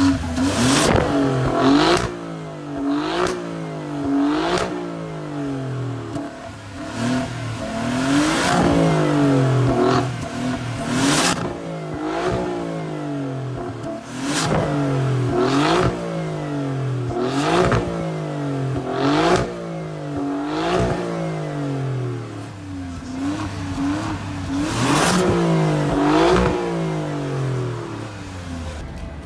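Alfa Romeo Giulia Quadrifoglio's 2.9-litre twin-turbo V6 revved over and over through its exhaust, over a dozen quick blips that each rise and fall back, with a sharp crack at many of the peaks.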